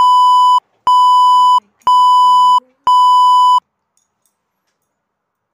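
Four loud electronic test-tone beeps at about 1 kHz, each a steady tone under a second long, repeating about once a second. This is the classic colour-bar test-pattern tone, edited in.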